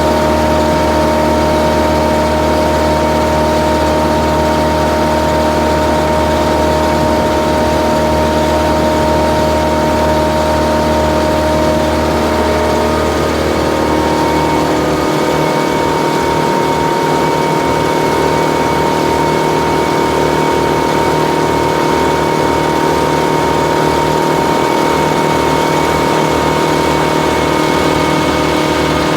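Engine of a piece of tree-service machinery, a wood chipper or compact skid steer, running steadily. Its tone shifts about halfway through.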